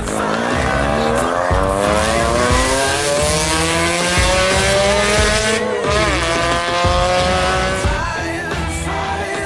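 Peugeot 206 rally car accelerating hard away from a hairpin, its engine note climbing steadily for about five seconds, dipping briefly, then running on at high revs. Music comes in near the end.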